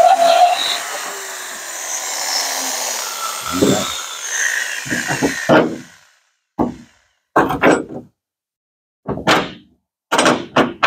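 A corded electric drill runs, its whine dropping in pitch, reaming out a bolt hole in the steel truck bed floor, and stops suddenly about halfway through. Then come several short knocks and clanks of metal as a bolt is worked into the hole.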